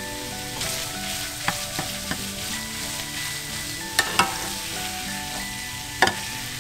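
Lobster chunks and minced garlic sizzling in a nonstick frying pan while a spatula stirs them, knocking against the pan a few times, loudest about four seconds in and again near the end.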